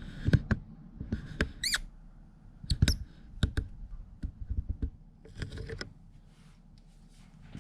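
Irregular sharp clicks, taps and knocks of small hard objects being handled, with a short warbling squeak about two seconds in and a few brief scrapes.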